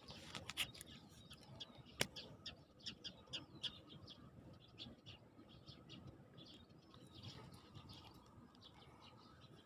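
Small birds chirping in quick, faint calls, busiest in the first few seconds, with a single sharp click about two seconds in.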